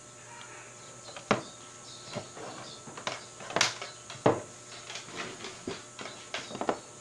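Irregular clicks and knocks of a DVD player's power-supply circuit board and small tools being handled and set down on a workbench, with three louder knocks about a second in and around three and a half to four seconds in.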